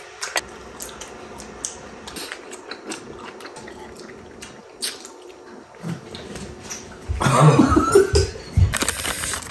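Chopsticks and utensils clinking and tapping against dishes at a meal table, scattered light clicks throughout, with a louder stretch of handling noise from about seven seconds in.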